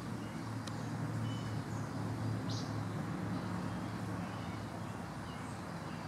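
Steady outdoor ambience: a constant low hum under an even hiss, with a few faint, short bird chirps, one about two and a half seconds in.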